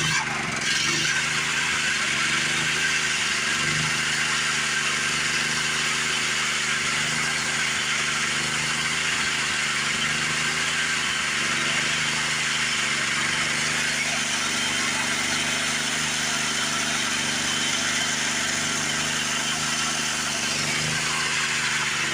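Small gasoline engine of a homemade sawmill running steadily at an even speed.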